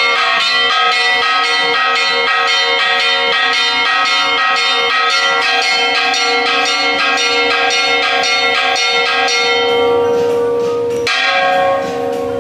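Bells ringing in a fast, even peal, several tones struck over and over, with a fresh, heavier strike near the end.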